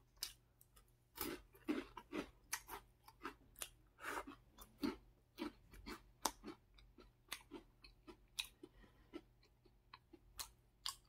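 Close-up chewing of a crisp snack: irregular crunches, a few a second.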